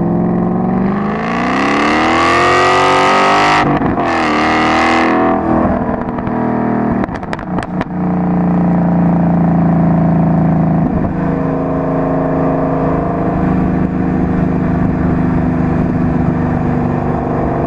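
Car engine and exhaust, picked up by a microphone mounted outside the car, accelerating hard with a rising pitch, a brief dip at a gear change about three and a half seconds in, and a second pull. It then eases off with a few sharp crackles and settles to a steady cruise for the rest.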